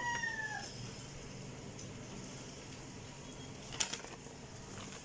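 The falling end of a rooster's crow in the first moment, then a faint steady low hum, with a brief crackle of a handled paper instruction sheet about four seconds in.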